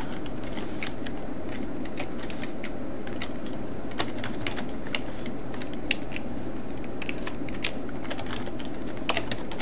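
Keystrokes on a computer keyboard: irregular clicks of someone typing in short bursts, over a steady low hum.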